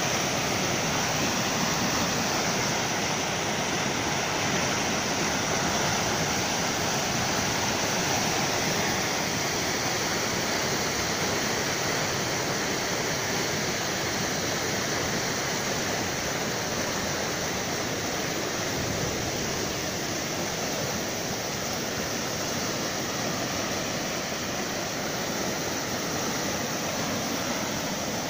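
Stream in flood: fast, muddy floodwater rushing and churning into white water, a steady, unbroken rushing noise.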